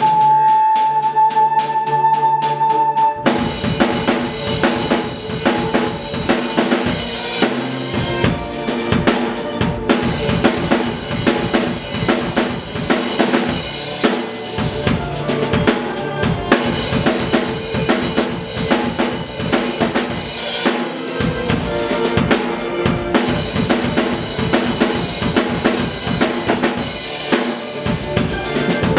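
Rock music with a drum kit: a single held note for about three seconds, then the full band comes in with bass drum and snare driving a steady beat.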